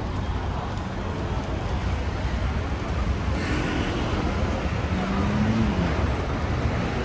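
Steady rumble of road traffic on a busy city boulevard, cars and buses going by, growing louder about halfway through as a vehicle passes close.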